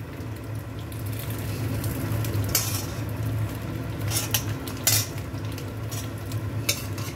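Metal spoon scraping and clinking against a wok while sweet and sour pork is served onto a hot sizzler plate, which sizzles steadily. Several sharp clinks are spread through, the clearest about two and a half and five seconds in, over a steady low hum.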